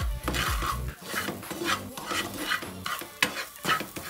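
Wooden spoon stirring and scraping minced shallots around a nonstick frying pan, in quick short strokes of about three a second.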